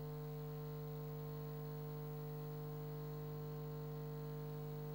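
Steady electrical mains hum, a low buzz with a ladder of higher overtones that holds unchanged throughout.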